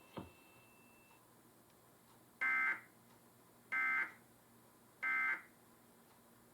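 Emergency Alert System end-of-message data signal: three short, identical buzzy digital bursts about a second apart, the coded 'NNNN' sequence that closes an EAS alert.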